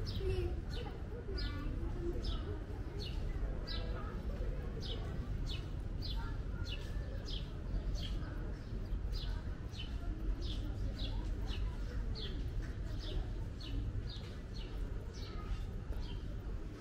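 A bird chirping over and over, short high chirps about twice a second, over a low steady street rumble.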